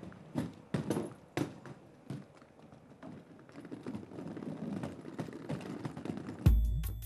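Heeled footsteps knocking on paving, a few sharp steps at first, then the steady rumbling rattle of two wheeled suitcases being pulled along. Music cuts in loudly near the end.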